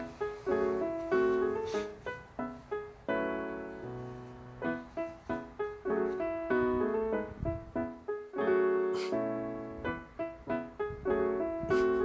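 Background piano music: a light melody of separate notes, each struck and fading away.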